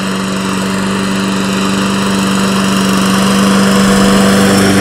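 Lawn mower engine running steadily at an even pitch, growing gradually louder.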